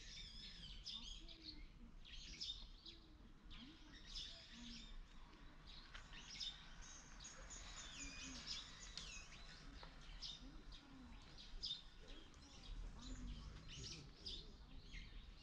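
Small birds chirping and twittering in quick, overlapping high calls, with faint distant voices underneath.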